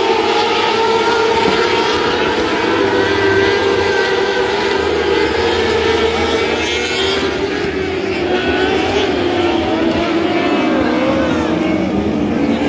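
A field of 600cc wingless micro sprint cars racing, their motorcycle-derived engines running at high revs. Several engine notes overlap, and their pitch rises and falls as the cars go down the straights and lift through the turns.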